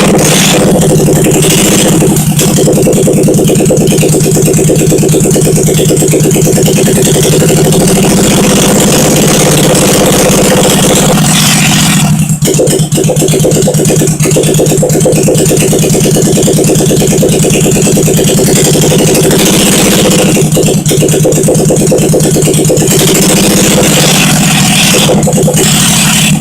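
1971 Honda SL350's air-cooled parallel-twin engine running steadily and loud on its first run after a rebuild, the speed wavering slightly now and then.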